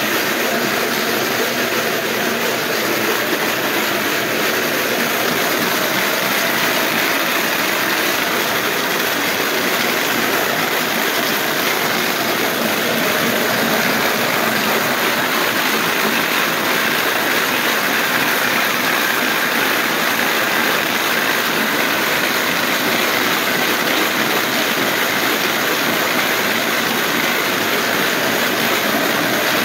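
Dog mill turning under a trotting dog: a steady, loud rolling rumble from the belt running over its rollers.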